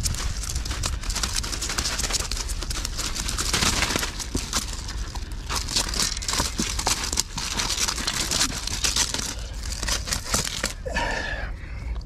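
A freshly landed hamachi (young yellowtail) thrashing on a concrete breakwater: a dense, uneven run of slaps, scrapes and crackles. Wind rumbles low on the microphone throughout.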